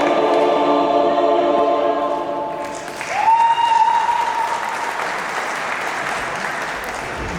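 Sustained choir-like music, then from about three seconds in the audience breaks into applause, with one long high call held over it.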